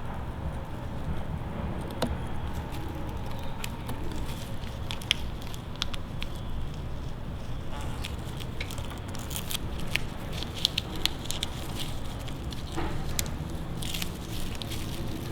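Masking tape being handled and trimmed by hand: scattered small crackles and ticks, thickest in the second half, over a steady low hum.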